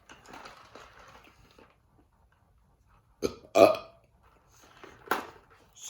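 A person burps once, loudly, about three and a half seconds in. There is faint rustling at the start and a short sharp noise near the end.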